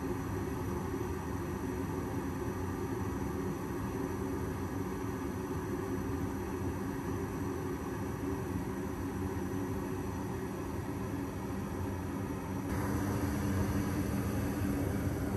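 Goodman gas furnace firing on a call for heat: a steady rush and hum from the lit burners and inducer fan, which steps up louder and brighter near the end.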